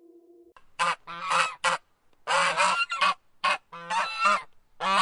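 Waterfowl honking: a run of about eight short calls starting about a second in, some coming in quick pairs.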